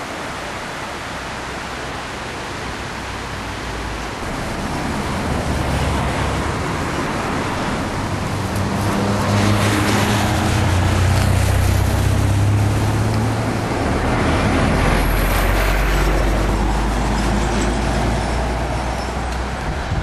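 Motor vehicles passing on the road, their engine hum and tyre noise swelling up from about four seconds in. The first is loudest about ten seconds in and a second passes a few seconds later, over a steady rushing hiss.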